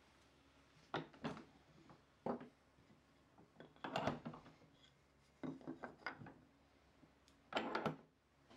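Short scraping strokes of a hand tool on hardwood, coming one after another with pauses between them, the longest about four seconds in and near the end.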